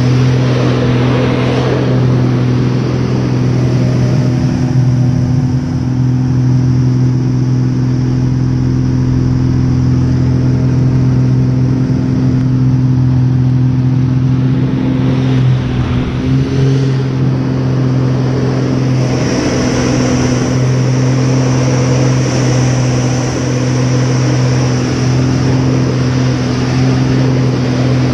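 Aerobatic airplane's piston engine and propeller heard from inside the cockpit: a loud, steady drone at an unchanging pitch. Rushing wind rides over it, fading through the middle and building again in the last third.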